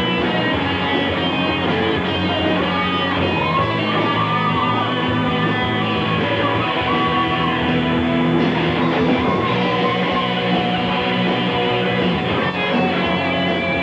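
Live rock band playing at full volume, with electric guitars over bass and drums. A lead line bends and wavers in pitch through the middle of the passage.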